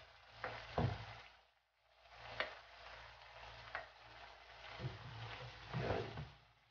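A spatula scraping and knocking against a frying pan, several separate clicks, over the faint steady hiss of fish simmering in vinegar broth.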